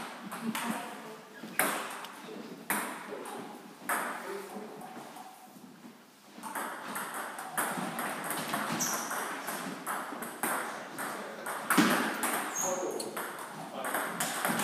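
Table tennis balls clicking off bats and tables in rallies at several tables at once. Play eases off about five seconds in and then picks up again in a quick run of hits.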